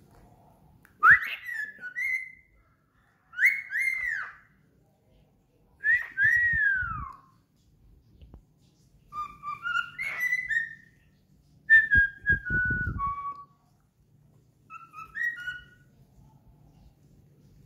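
Cockatiel whistling in about six short phrases of clear notes with pauses between them; several notes slide downward in pitch. Low muffled noise sounds under two of the phrases, near the middle and about two thirds of the way in.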